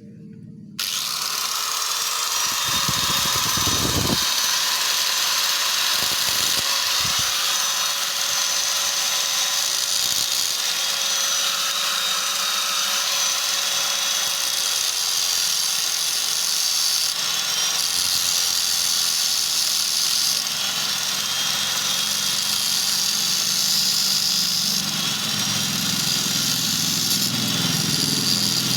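Small motorcycle engine running steadily at idle, starting abruptly about a second in, with a few low thumps in the first several seconds.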